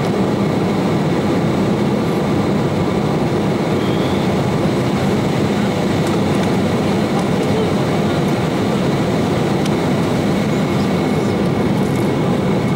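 Steady cabin noise inside an Embraer 190 airliner in flight: the hum of its GE CF34-10E turbofan engines mixed with the rush of air, with a few faint thin tones over it.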